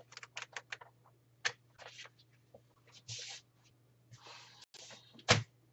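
Paper instruction booklet being handled and leafed through: short rustles and scattered light clicks, with a sharp knock near the end. A steady low hum sits underneath.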